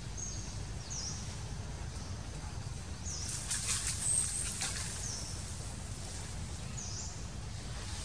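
Small birds chirping: short, high, falling notes about once a second, with a denser flurry of calls about halfway through, over a steady low rumble.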